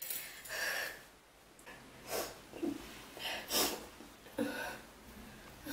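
A woman breathing hard in a string of short, sharp breaths and gasps, about eight over a few seconds, some with a faint catch of voice.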